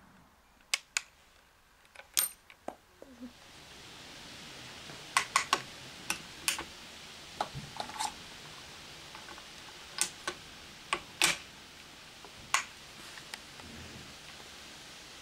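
A series of sharp metallic clicks and clinks from a Springfield Model 1873 trapdoor rifle being reloaded between shots: the hinged breechblock and hammer are worked and a .45-70 cartridge is taken from a plastic ammo box, with clusters of clicks a few seconds in and again near the middle.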